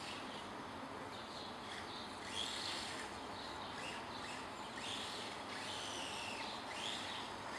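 Small electric motor of an RC drift car whining, rising and falling in pitch several times as the car speeds up and slows.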